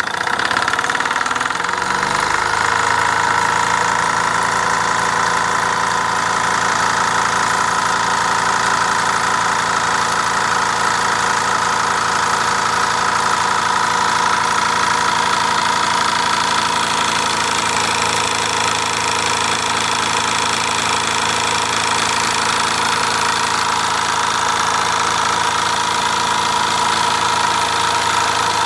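Mamod SE3 twin-cylinder toy steam engine running steadily under steam, a rapid even chuffing and knocking that sounds like a diesel motor at idle, with a steady high tone over it.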